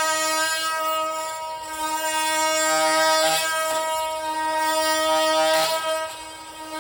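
Makita XMT04ZB cordless oscillating multi-tool running with a steady high-pitched hum, its blade cutting into wood with bursts of scraping noise about three and five and a half seconds in.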